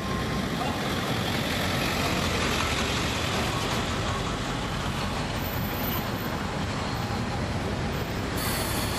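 Caterpillar C13 diesel engine of a NABI 40-foot transit bus running, heard inside the cabin from the rear seats as a steady drone of engine and road noise.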